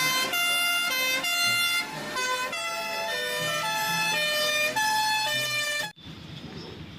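Electronic fire-truck siren sound effect: a run of horn-like tones stepping up and down in pitch, cutting off abruptly about six seconds in.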